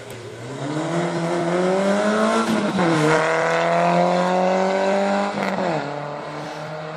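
Rally car accelerating hard along the stage. Its engine pitch climbs, drops at a gear change about two and a half seconds in, climbs again to a second shift about five and a half seconds in, and the engine then fades as the car moves away.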